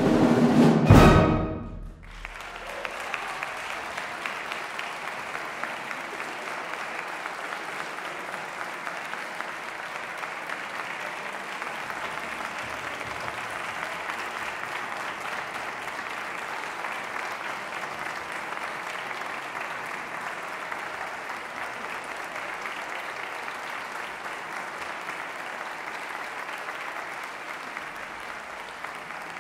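A symphonic wind band plays its closing chords, the last one cut off about two seconds in, followed by an audience applauding steadily.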